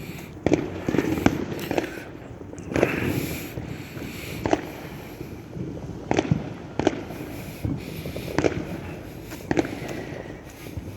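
Fireworks going off: about a dozen sharp bangs and cracks at irregular intervals, some close together, over a steady low rumble of background noise.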